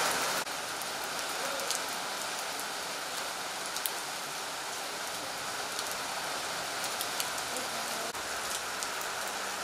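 Heavy rain falling steadily: a dense, even hiss with scattered sharper ticks of single drops.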